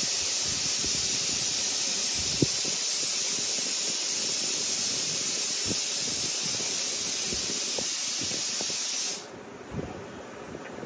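Steady loud hiss that cuts off suddenly about nine seconds in, with a few faint soft clicks underneath.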